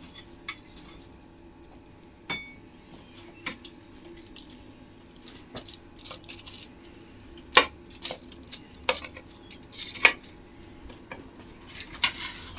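Kitchen utensils and dishes handled on a worktop: irregular sharp clinks and knocks, with a short scrape near the end.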